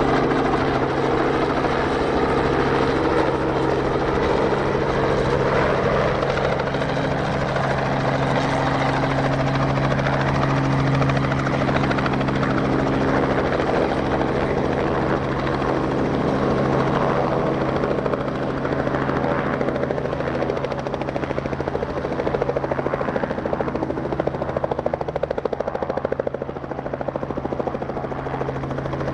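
Robinson light helicopter hovering in and setting down on its skids, with its rotor and engine running steadily. The sound gets a little quieter near the end as it settles.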